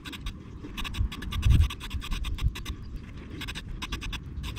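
Aerosol spray can of gloss black paint hissing in short, rapid spurts as a light coat is misted onto the floats. A low thump about a second and a half in.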